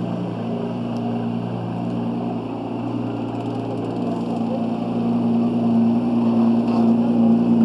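Tuned Nissan GT-R's twin-turbo V6 running at low revs while the car moves off slowly, a steady low drone that grows louder over the last few seconds as the car comes past.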